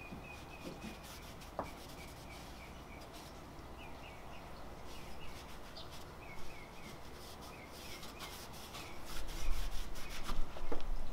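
Cloth rag rubbing and wiping the painted metal around a car's taillight opening, a run of soft scrubbing strokes that get louder near the end.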